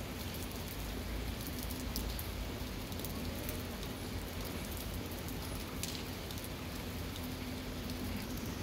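Steady rain falling on wet stone paving, an even hiss with scattered sharper drop hits.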